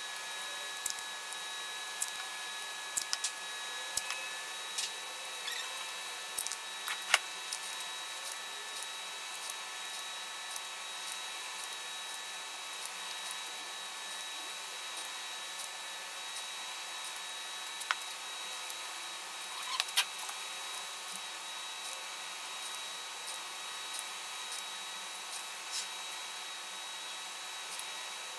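Steady faint workshop hiss carrying a few thin high tones, broken by scattered small clicks and taps from handling masking tape and the guitar neck. A small cluster of taps comes about twenty seconds in.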